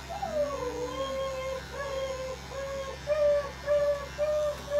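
A cat yowling in a long, wavering, low moan broken into a run of short notes, loudest a little after the middle. An electric pet clipper buzzes steadily underneath as it shaves the cat's foreleg.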